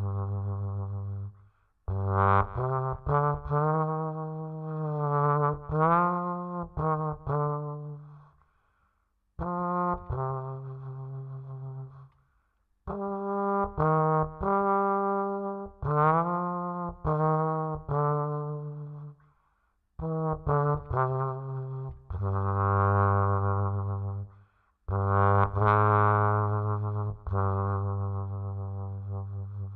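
Music: a single low brass melody, trombone-like, playing gliding notes in phrases separated by short pauses.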